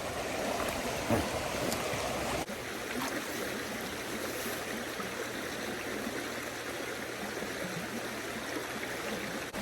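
Small creek water running with a steady rushing; the sound drops slightly and changes character abruptly about two and a half seconds in.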